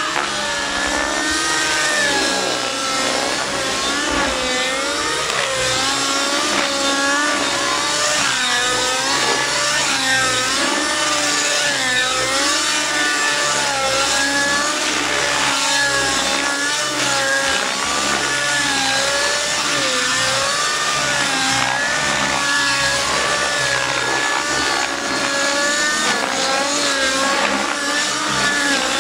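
Nitro engine and rotors of an Outrage Velocity radio-controlled helicopter flying aerobatics. The engine whine rises and falls in pitch over and over as the helicopter swings through its manoeuvres.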